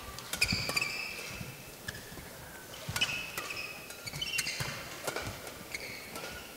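Badminton rally: sharp cracks of a shuttlecock struck by rackets, with the players' shoes squeaking and thudding on the court mat between shots.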